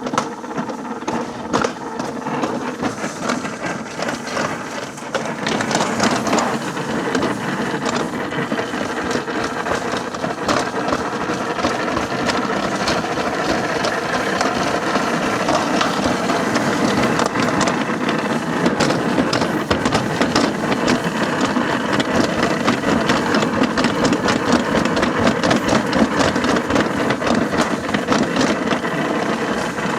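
Wheeled toboggan sled running down a metal slide track: a steady rolling rumble with rapid rattling clicks, growing louder about five seconds in.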